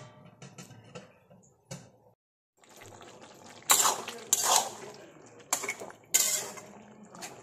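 Metal spatula scraping and knocking against a steel kadai as chicken and potato curry is stirred: four sharp scrapes in the second half over a low steady hiss. Before that, a faint click.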